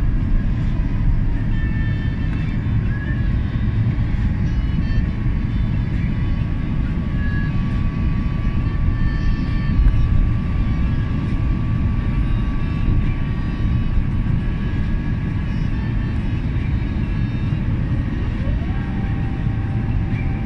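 Jet airliner cabin noise on a night approach: a steady low roar of engines and rushing air, with a faint steady whine above it. Near the end, a second whine rises in pitch and then holds.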